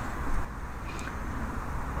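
Steady low outdoor rumble. A soft knock comes just after the start as a stainless steel Sierra cup is set down on a wool blanket, and a faint metallic tick follows about a second in.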